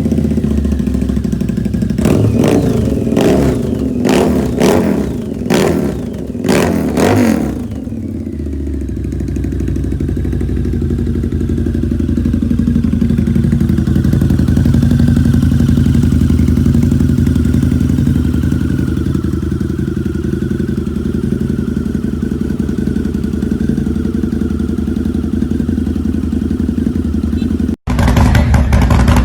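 Harley-Davidson V-twin motorcycle engine revved in several quick, sharp throttle blips, then settling into a steady running note. Near the end it cuts abruptly to another motorcycle engine running louder.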